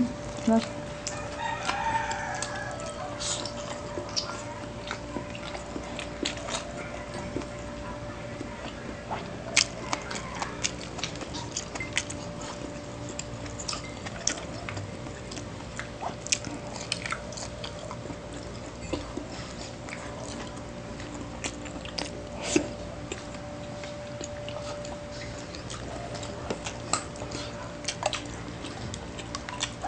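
Close-miked eating: chewing and mouth smacks with scattered sharp clicks and taps, over a steady faint hum.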